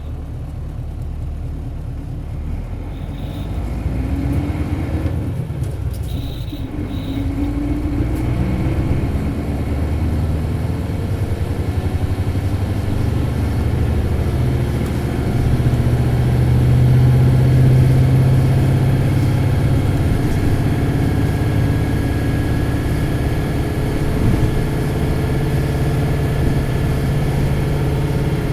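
Isuzu 8PE1-S V8 diesel engine of an Isuzu Cubic bus accelerating hard, heard from inside the bus: the revs climb, dip at a gear change about five seconds in, climb again, then hold high and loud, with a faint rising whine near the end.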